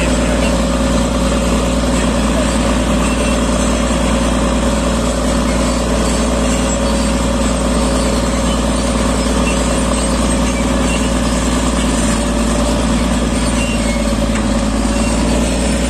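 Caterpillar D6R crawler bulldozer's diesel engine running steadily under load as the blade pushes rock and earth, heard from the operator's cab.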